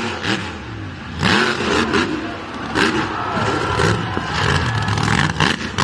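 Engine revving sound effect, its pitch rising and falling over several revs with a noisy rattle, presented as the toy monster truck's engine.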